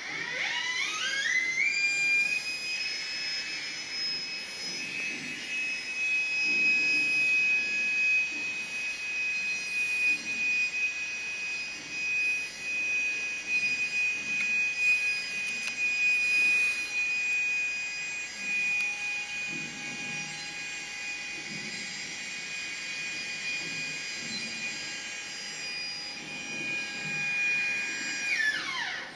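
An electric motor whining at high speed: it spins up over about two seconds to a steady high-pitched whine, runs evenly, then winds down near the end.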